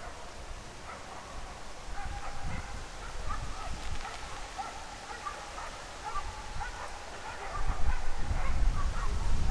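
2M62 diesel locomotive's two-stroke engine running with a low rumble that grows louder near the end, under a scatter of short, repeated animal calls.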